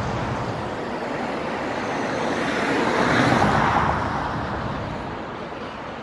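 A road vehicle driving past: a rushing noise that swells to a peak about three seconds in and then fades away.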